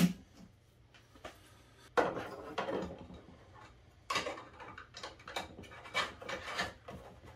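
Hands handling a hinged plastic enclosure and small plastic fittings: scattered light clicks, knocks and rattles, sparse for the first two seconds and busier after. A power drill with a hole saw cuts off at the very start.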